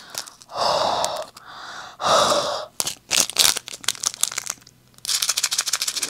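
Two breaths blown into a small plastic bag of diamond painting drills, then the bag crinkling and, from about five seconds in, the drills rattling quickly as the bag is shaken. Blowing moist breath in and shaking the drills is done to get rid of their static.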